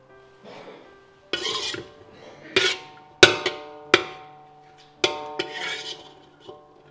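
A spatula scraping and knocking against a cooking pan as the finished stir-fry is dished out: several short scrapes and a few sharp knocks at uneven intervals, over steady background music.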